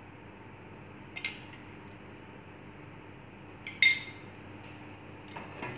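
Kitchen bowls clinking: a light click about a second in and a sharper, louder clink near four seconds, over faint room hiss.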